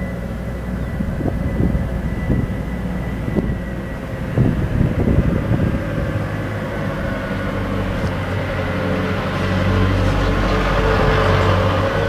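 Small single-cylinder, air-cooled 6.5 HP gasoline engine running steadily at a constant speed, with a steady high tone over its fast firing beat. It grows a little louder and hissier over the last couple of seconds.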